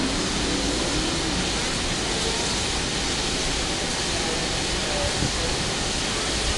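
Steady hiss of steam from a small narrow-gauge steam locomotive drawing into a station, with faint voices in the background.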